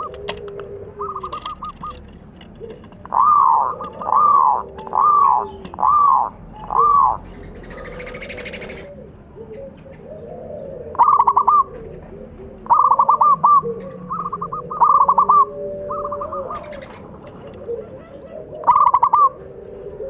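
Zebra dove (perkutut) cooing: short trilled coos, five loud ones about a second apart in the first seconds, then more in runs of two or three, over softer, lower calls.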